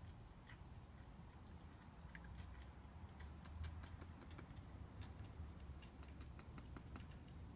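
Faint, irregular small clicks and smacks of a pet hedgehog mouthing and licking at the rim of a cooking pan.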